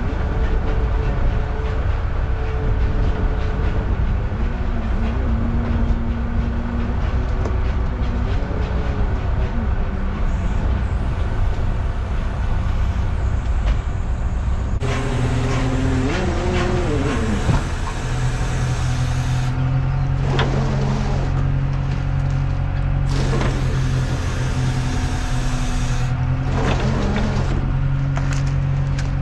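Fishing boat's engine running steadily. In the second half, a few short sliding tones and several sharp knocks and clatters sound over it.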